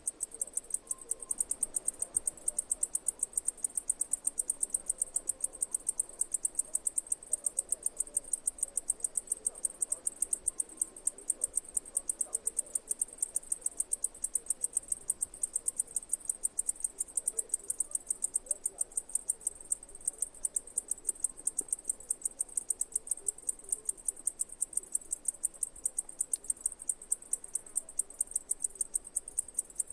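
Insect chirping: a fast, even rhythm of high-pitched pulses, several a second, that keeps up steadily.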